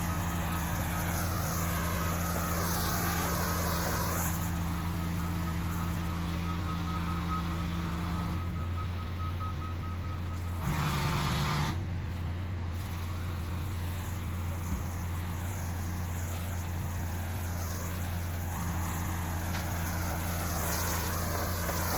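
Pressure washer engine running steadily under the hiss of high-pressure water spray, with a louder surge of spray about eleven seconds in.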